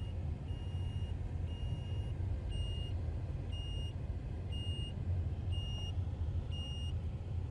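A reversing alarm beeping about once a second, seven short high beeps, over a steady low engine rumble. The sound cuts off abruptly at the end.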